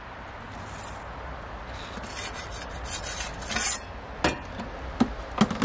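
Metal turning peel scraping over the pizza oven's stone floor for a couple of seconds as the pizza is turned, then a few sharp metal clacks as the oven's metal door is set back in place.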